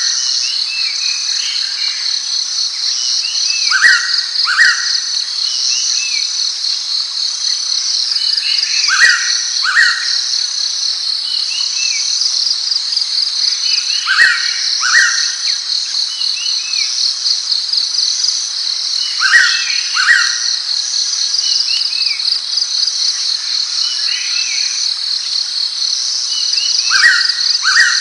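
Blue-winged pitta calling: a clear two-note whistle, each note sliding downward, repeated about every five seconds. Under it runs a steady, high, pulsing insect drone, with faint chirps from other birds.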